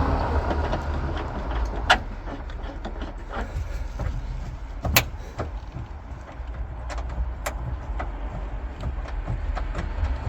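Scattered clicks and knocks of seat belt anchor bolts and hardware being handled while the belt is fitted in a car's rear seat area. The sharpest clicks come about two and five seconds in, over a steady low rumble.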